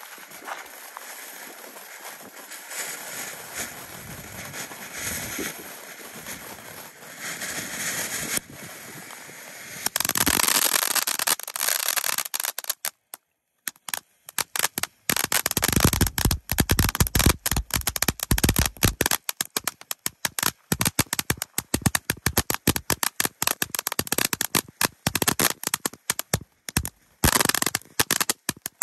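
Wrath of Hydra firework fountain burning: a steady hiss of spraying sparks, then from about ten seconds in a much louder, dense crackling of rapid pops. It stops abruptly as the fountain burns out at the end.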